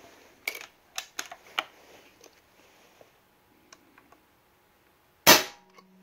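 A few light handling clicks on an Airventuri Avenger .22 PCP air rifle, then about five seconds in a single loud, sharp crack as the trigger breaks and the hammer releases during a trigger pull weight test.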